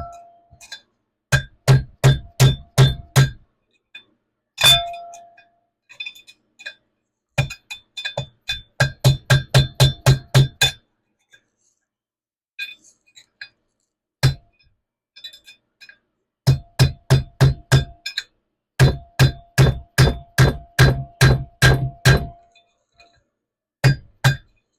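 Hammer blows on a flathead demolition screwdriver used as a drift to drive a bearing race out of a trailer axle hub. The metal-on-metal strikes ring and come in quick runs of about four blows a second, with short pauses between the runs.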